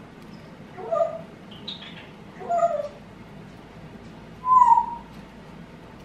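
A pet parrot calling: four short calls about a second to a second and a half apart, the last the loudest and clearest.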